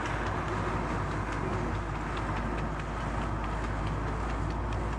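Steady engine and road rumble of a car driving close behind a trotting harness horse, with a rhythmic clatter of the horse's hooves on the tarmac.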